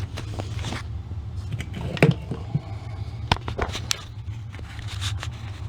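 Knocks and light scrapes as a sump pump is handled and set down in its pit, with a sharp knock about two seconds in and another a little past three seconds, over a steady low hum.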